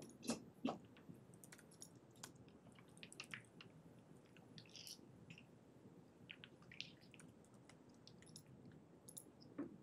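Faint, irregular computer keyboard typing: scattered soft key clicks, with a few louder key strikes in the first second and one near the end.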